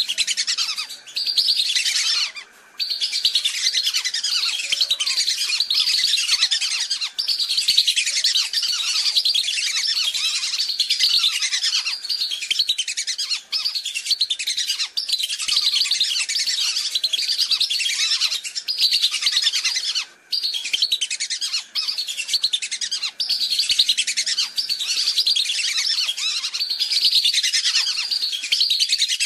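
A flock of whistling ducks (belibis) calling without a break: many high, thin whistles overlapping in a dense chorus. Short gaps come about two seconds in and again about twenty seconds in. It is a lure call recording used to draw whistling ducks in.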